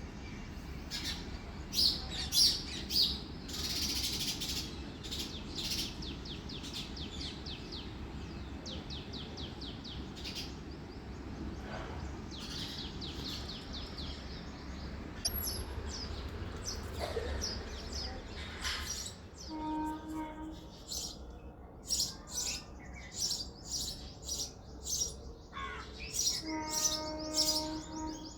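House sparrows chirping: many short, repeated chirps, some coming in quick runs, over a steady low hum.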